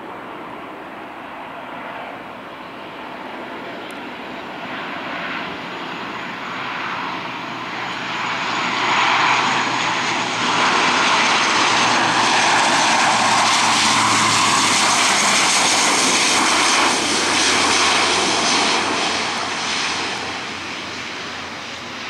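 U.S. Coast Guard HC-27J Spartan's twin turboprop engines and propellers on landing approach. The sound grows as the aircraft comes in, is loudest through the middle as it passes, and fades near the end. A low tone drops in pitch as it goes by.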